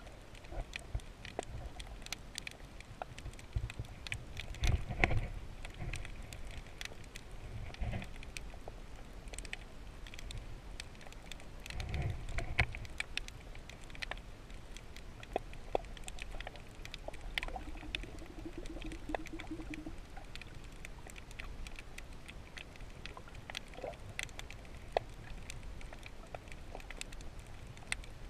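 Underwater ambience over a shallow rocky seabed: a steady scatter of sharp clicks and crackles, with low rushing rumbles of water movement about five and twelve seconds in. A brief faint hum comes in about eighteen seconds in.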